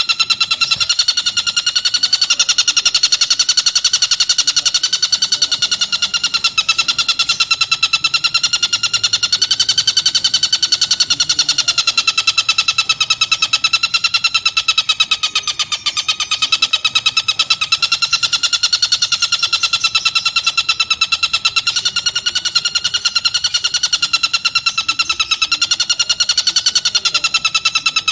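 Tengkek buto bird giving a continuous, very rapid trilling chatter of evenly spaced pulses. Its pitch wavers slowly up and down without a break.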